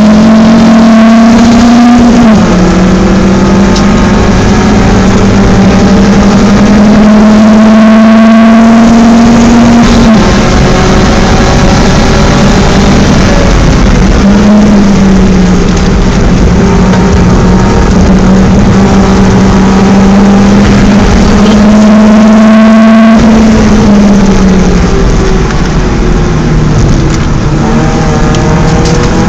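BMW 318is four-cylinder engine run hard on track. Its note climbs slowly under load and drops abruptly a few times, at gear changes or lifts.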